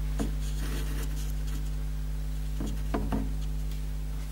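Room tone: a steady low hum with a few faint clicks.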